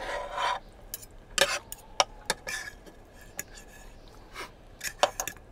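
Dishes and small objects being handled on a tabletop: a short scrape at the start, then a scattered series of light clinks and knocks, one ringing briefly.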